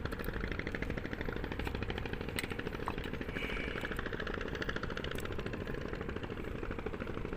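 A motor running steadily with a rapid, even pulse, with a few faint clicks over it.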